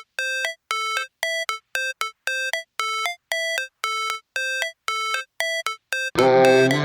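Background electronic music: a repeating pattern of short, bright synth notes, about two a second, joined by a fuller, louder arrangement with bass about six seconds in.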